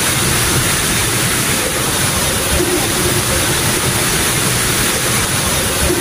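A rocky stream cascading and splashing: a steady, dense rush of flowing water that does not let up.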